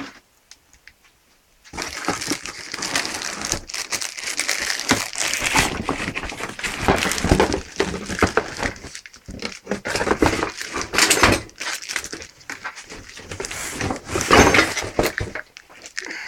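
Packaging being unwrapped and handled: irregular crinkling and rustling with scattered clicks and knocks. It starts about two seconds in and fades near the end.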